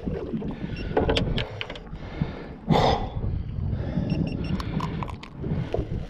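Handling noise on a small fishing boat: scattered knocks, clicks and rattles of gear over a low rumble, with one louder rush of noise about three seconds in.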